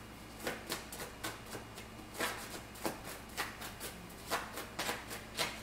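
A deck of tarot cards being shuffled by hand: an irregular run of short swishes and taps, about three a second, as cards slide and drop onto the deck.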